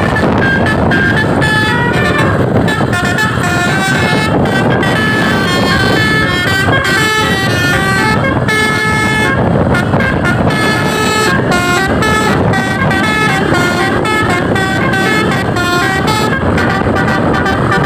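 Basuri-type telolet bus horn run by a DAV module, playing a melody as a quick run of steady tones that step up and down in pitch, over constant background noise.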